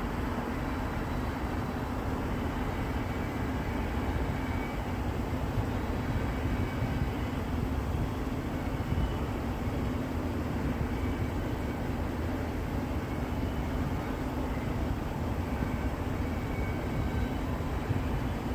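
Double-stack container cars of a freight train rolling by, a steady rumble of steel wheels on rail, with faint high tones coming and going above it.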